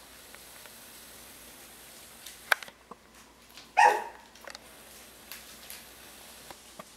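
Yorkshire terrier puppy giving one short, high bark just before four seconds in, with a sharp click shortly before it and a few small ticks.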